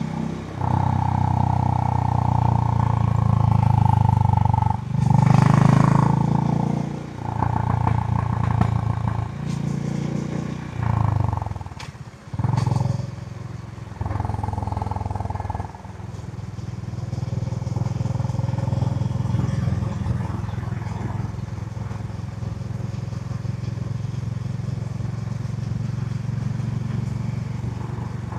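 Honda H'ness CB350's air-cooled 348 cc single-cylinder engine running on its stock exhaust while being ridden. Over the first half it drops off and picks up again several times, then pulls steadily for the rest.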